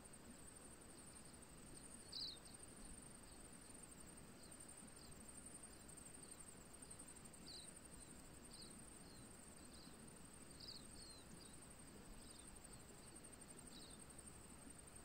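Faint outdoor ambience: a steady high-pitched insect buzz, with short high chirps every few seconds, over a low hiss of flowing river water.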